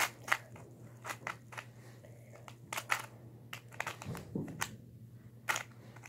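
Plastic clicking and clacking of a 2x2 Rubik's cube as its layers are turned by hand, irregular clicks a few a second with a short pause about two seconds in, over a faint steady hum.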